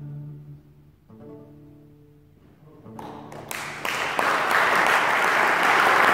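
Acoustic guitar's final chords ringing and fading away, with a second strum about a second in. About three seconds in, audience applause starts with a few claps and swells into full applause.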